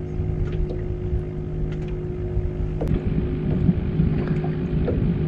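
Steady hum of a boat motor, with wind rumbling on the microphone and a few light clicks.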